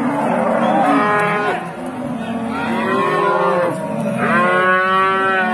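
Several cattle mooing, long calls overlapping and following one another.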